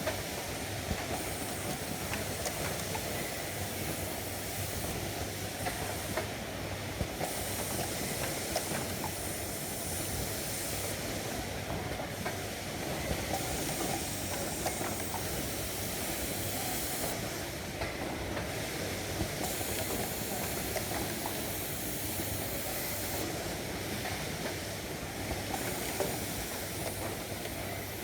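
Wire-cutting machine running steadily: a continuous hiss with a low hum and a scatter of faint clicks, the high part of the hiss shifting every few seconds.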